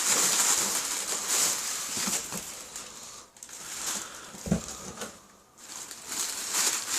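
Packing material rustling and crinkling as hands dig through a shipping box, with one soft thump about four and a half seconds in.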